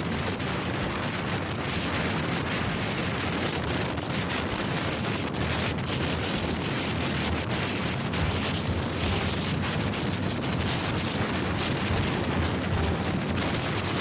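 Heavy wind buffeting the microphone: a steady, dense rumble with constant crackle.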